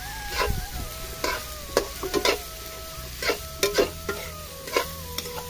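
A metal spatula stirring and scraping food in a pan, knocking on the pan a dozen or so times in irregular clusters, over the sizzle of hot oil frying. A faint melody of steady, stepping tones runs underneath.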